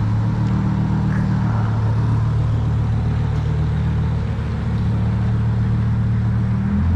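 A car engine running steadily at low revs, a deep, even sound that shifts slightly near the end.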